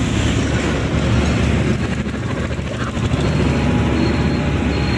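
Steady road-traffic noise, a low rumble of vehicles on a busy street.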